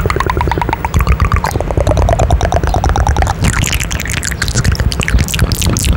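Rapid, wet kissing and lip-smacking sounds made with the lips pressed right up against a microphone, a dense run of clicks and pops with a thudding low rumble from the closeness.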